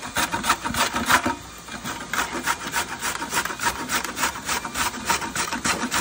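A carrot being grated by hand on a stainless-steel box grater: quick rasping strokes, about three or four a second.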